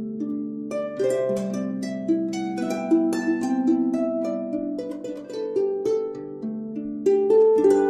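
Background music: a gentle melody of plucked strings, many notes in quick succession.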